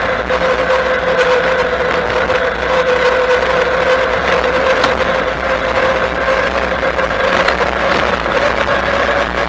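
Bafang BBSHD mid-drive e-bike motor whining steadily under way, its pitch creeping slightly higher near the end, over a steady rush of wind and tyre noise.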